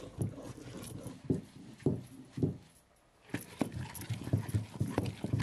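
Rhythmic low thuds and scraping as fresh grated coconut is ground, about two strokes a second, with a short pause partway through.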